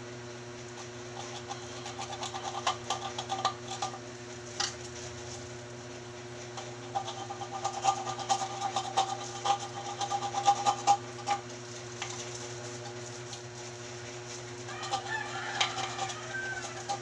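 Chickens calling in stretches, with a rooster crowing near the end. Scattered clicks and rattles of rubbish being handled run under the calls.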